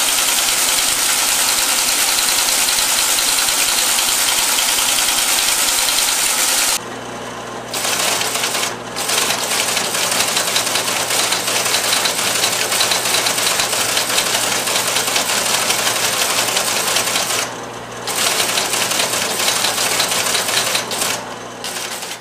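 Old electromechanical teletype machines printing: a loud, rapid, continuous mechanical clatter of the print mechanism hammering characters onto paper. The clatter breaks off briefly about seven seconds in and twice more later on. A steady low hum from the second machine runs beneath its clatter.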